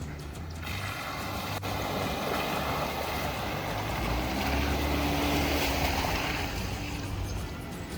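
Jeep engine running as it drives through trail water, with a steady rushing of water. The engine note rises briefly about four seconds in.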